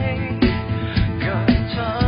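Pop-style background music with a steady beat, about two beats a second.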